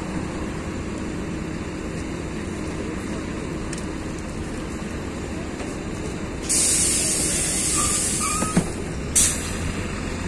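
Inside a LiAZ 6213.22 articulated city bus: a steady low rumble, then about six seconds in a loud hiss of released compressed air from the bus's pneumatic system that lasts nearly three seconds. It ends with a sharp click and a brief second burst of air.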